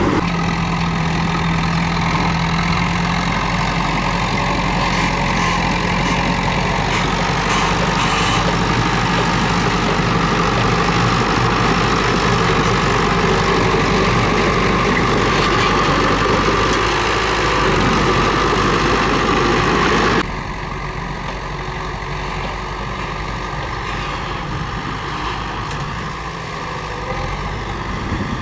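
Diesel engine of a Komatsu D31P crawler bulldozer running steadily. About two-thirds of the way through, the sound changes abruptly and gets quieter.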